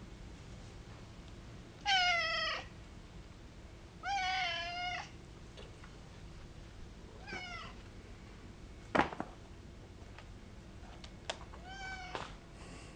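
Domestic cats meowing: four separate drawn-out meows, each falling in pitch at the end, the second the longest at about a second. A single sharp click cuts in about nine seconds in.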